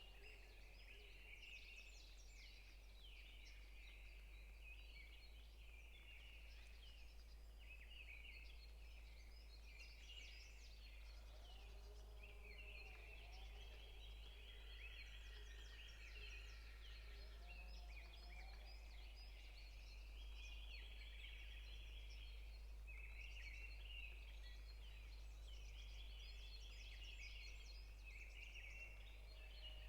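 Faint forest bird chorus: several songbirds chirping and giving buzzy trills throughout, with a few lower calls about twelve and eighteen seconds in. A steady low hum runs underneath.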